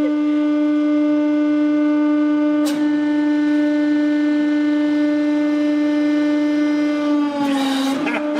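Hydraulic press's pump running with a loud, steady hum on a single pitch. There is a short click about three seconds in. Near the end the hum drops slightly in pitch, with a brief rushing noise, as the ram presses down on the soft clay figure.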